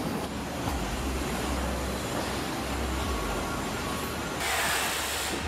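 Car assembly plant floor noise: a steady rumble and hum of machinery along the line, with a short burst of hiss about four and a half seconds in.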